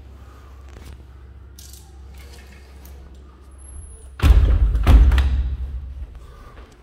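Two heavy thumps about four seconds in, about two-thirds of a second apart, with a deep rumble that dies away over the next second or so, over a steady low rumble.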